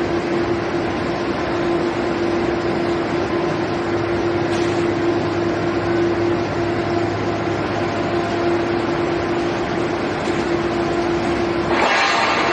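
Steady industrial machinery noise of an aluminium billet homogenizing furnace plant running, with a constant hum-like tone, and a louder hiss coming in near the end.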